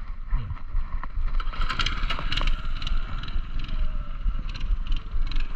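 Wind rumbling and buffeting on the microphone while riding a Talaria Sting electric dirt bike across pavement, with no engine note.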